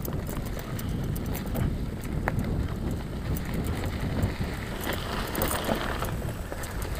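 Mountain bike riding over a rough dirt road: a steady low rumble of tyres on the ground, with many small clicks and rattles from the bike, and wind buffeting the microphone.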